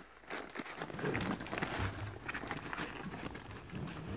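Eight-week-old Rottweiler puppies scuffling in a nylon dog bed: fabric rustling and crinkling with small scrabbling clicks, and low grumbling starting about a second in.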